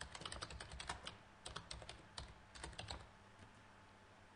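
Computer keyboard keys tapped faintly: a quick run of keystrokes in the first second, then a few scattered taps, stopping about three seconds in. The keys are deleting a mistyped word and switching caps lock off.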